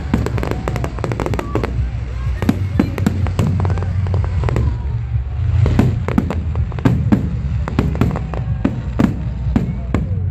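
Fireworks display: a rapid, irregular barrage of bangs and crackling from exploding shells, over a steady low rumble.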